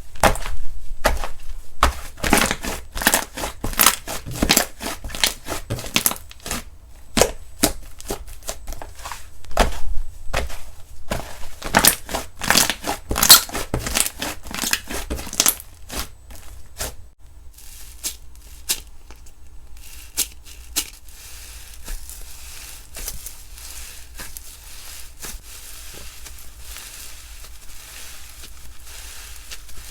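Slime being handled, pressed and stretched by hand, giving rapid sharp clicks and crackles. After about the middle it turns to softer, quieter squishing.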